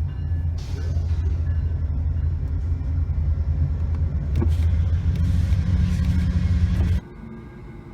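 Loud, steady low rumble with a noisy haze above it, cutting off abruptly about seven seconds in.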